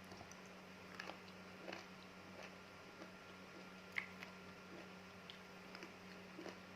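Close-miked chewing of fresh fruit with palm-sugar chili sauce: scattered soft, wet mouth clicks and smacks, the sharpest about four seconds in, over a faint steady hum.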